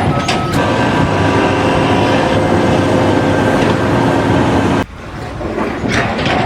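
A heavy machine or vehicle running with a steady mechanical noise and several held tones, cutting off abruptly about five seconds in; a few sharp knocks follow.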